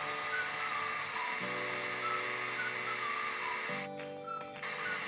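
Countertop blender motor running as it blends cottage cheese, stopping for about half a second near the four-second mark and then starting again, over background music.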